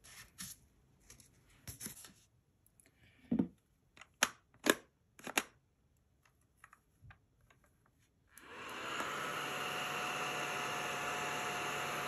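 Plastic clicks and knocks as the small pink sharpener-vacuum is handled. About eight seconds in, its small vacuum fan motor switches on, rising quickly to a steady hiss with a faint hum that keeps running.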